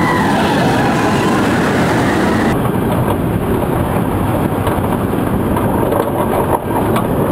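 Inverted steel roller coaster (Battlestar Galactica: Cylon) running fast along its track: a loud, steady rushing noise with no clear rhythm. About two and a half seconds in, the character of the noise changes abruptly.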